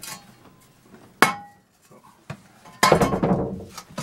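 Hand tools and pipe fittings knocked about in concrete rubble: a single sharp clink with a brief ring about a second in, then about a second of loud clattering and scraping near the three-second mark.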